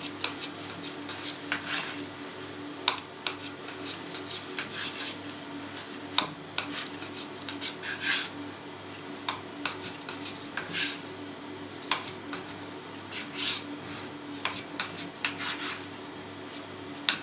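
Knife slicing a pressed slab of suluguni cheese curd into strips on a cutting board: irregular short taps and scrapes of the blade against the board, over a steady low hum.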